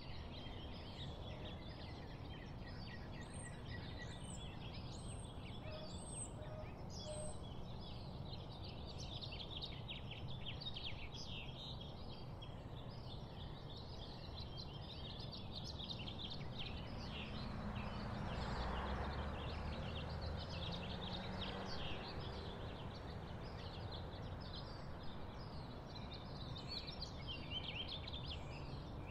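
Outdoor chorus of birds and insects: a dense, steady mass of rapid high chirps, with one bird repeating a thin, very high falling note several times about three to seven seconds in. A soft rushing swell rises and fades around the middle.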